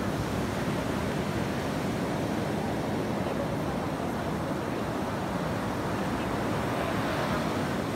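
Steady wind noise buffeting the microphone, with the wash of surf on the beach behind it.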